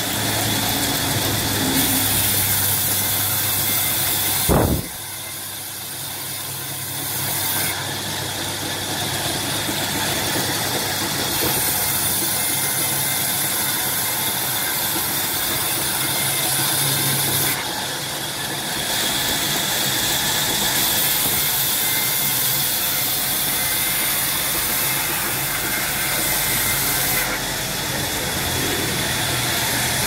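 Sawmill band saw running and cutting mango wood boards, a steady machine noise with a high hiss of the cut that comes and goes as pieces are fed through. A single sharp knock about four and a half seconds in.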